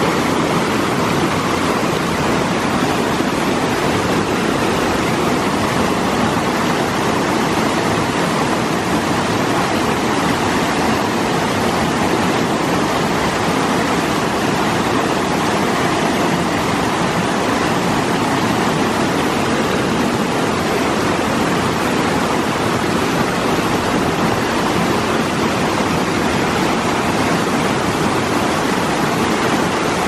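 Mountain stream rushing over boulders in small whitewater rapids: a steady, unbroken water noise.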